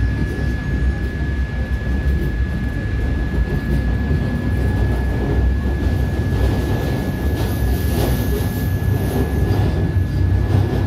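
Madrid Metro Line 5 train running through a tunnel, heard from inside the carriage: a steady low rumble of wheels on rails with a constant high whine, and a faint high squeal about eight seconds in.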